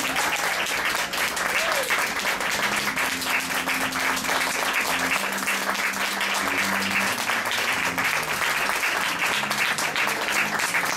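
Theatre audience applauding steadily, with music playing underneath in held low notes.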